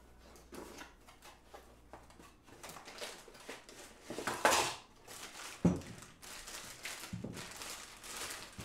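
Plastic bag crinkling and box packaging rustling as a boxed chainsaw cylinder and piston kit is unpacked by hand, in irregular bursts loudest about halfway through. A short sharp knock follows soon after.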